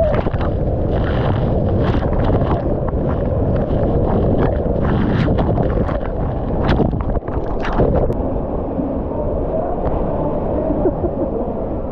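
Rushing water and wind noise on a rider-worn camera sliding down an enclosed water slide tube, with scattered sharp knocks and splashes through the first part, then a steadier rush.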